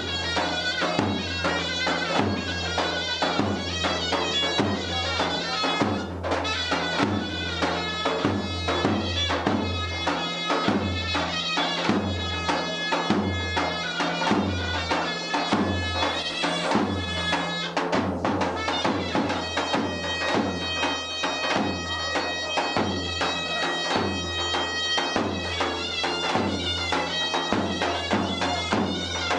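Traditional folk music: a reedy, bagpipe-like wind instrument plays a continuous melody over a regular low drum beat.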